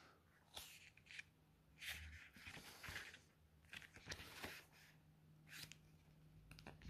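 Pages of a small illustrated booklet being turned by hand: faint paper rustles and flicks, several in a row.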